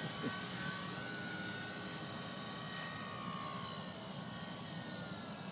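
Small electric RC helicopter (Double Horse 9116 fitted with a 180-size motor) in flight: a steady motor and rotor whine that wavers slightly in pitch as the throttle changes, fading a little toward the end.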